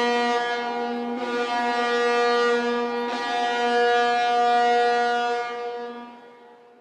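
Ship's horn sounding one long, steady blast, a rich chord-like tone that fades away near the end.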